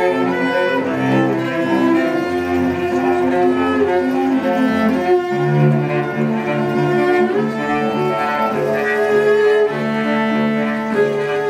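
Cellos playing long bowed notes; about five seconds in a lower note comes in beneath the upper line.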